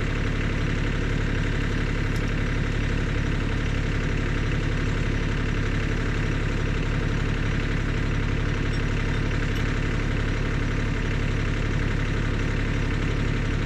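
Blue compact tractor's engine idling steadily.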